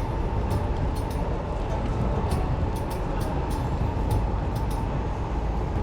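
Steady low rumble of busy city street noise, with many faint sharp clicks throughout.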